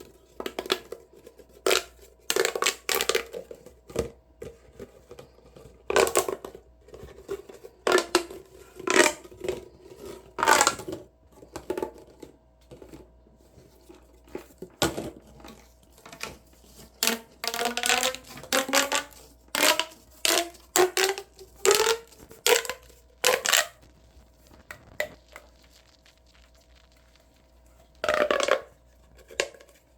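Plastic pop tubes being stretched and squashed, giving short bursts of crackling clicks and pops, some with a rising pitch. There is a pause of a few seconds near the end.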